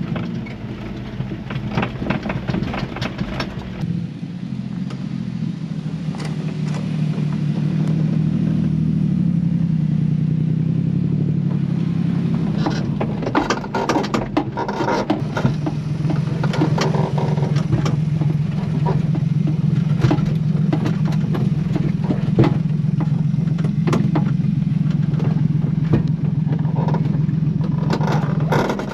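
1991 Honda Acty kei truck's small three-cylinder engine running steadily at low speed, heard from inside the cab. Frequent knocks and rattles from the cab as the truck jolts over a rough, rutted dirt trail, growing busier about halfway through.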